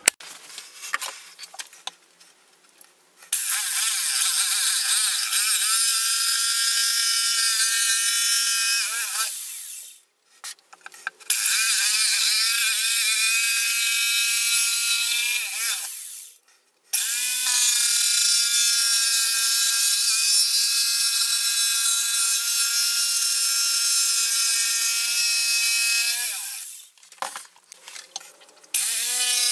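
A power tool running with a steady high whine in three long stretches of several seconds each, its pitch wavering slightly, with short pauses between.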